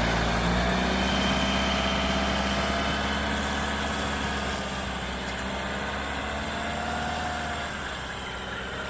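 Off-road vehicle's engine running at low revs, getting gradually quieter.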